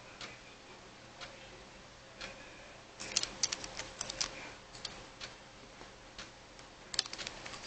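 Regular ticking about once a second, with two flurries of sharper, louder clicks, one about three seconds in and one near the end.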